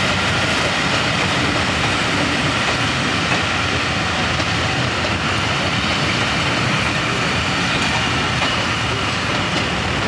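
A rake of British Rail Mark 1 passenger coaches rolling past on the track, a steady, loud noise of wheels on rail.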